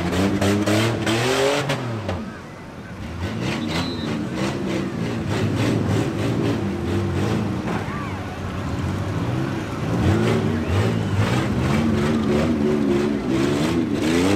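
Demolition derby minivans' engines revving hard, their pitch rising and falling again and again, with short sharp cracks among them. The engines ease briefly about two and a half seconds in, then rev up again.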